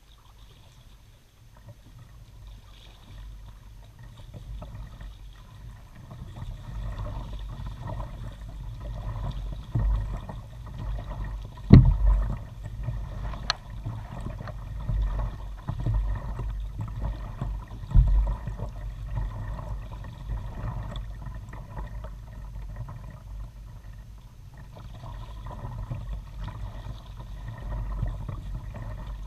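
Kayak paddling on calm water, heard from a camera mounted on the bow: paddle strokes swishing and dripping over a low rumble. It starts quiet and picks up after a few seconds, with two sharp knocks, about twelve seconds in and again about six seconds later.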